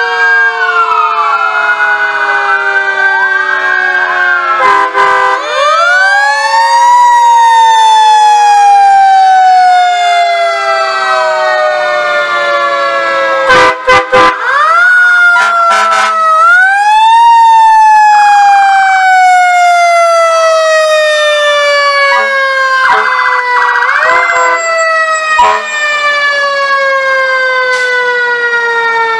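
Several fire truck sirens sounding together and overlapping, each rising quickly in pitch and then falling slowly over several seconds before rising again. A few short sharp knocks cut through.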